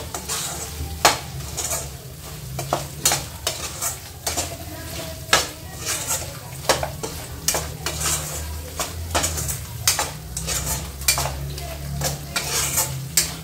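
Mutton pieces and ground spices sizzling as they fry in hot oil in a kadai. A steel slotted spoon stirs them, knocking and scraping against the pan every second or so.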